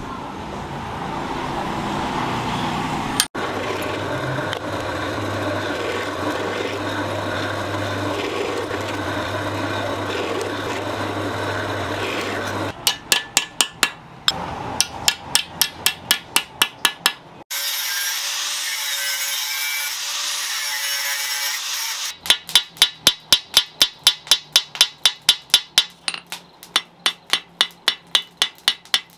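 A steady rasping, scraping sound for the first dozen seconds, then a hammer tapping fast and evenly on the steel pins that rivet wooden handle scales to a sword tang over an anvil, about three to four light blows a second. The tapping breaks off for a few seconds in the middle, where a different steady sound comes in, then picks up again.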